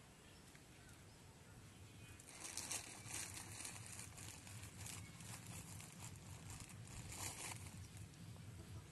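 A plastic bag rustling and crinkling as it is handled, in irregular bursts from a couple of seconds in until near the end, over a faint low steady hum.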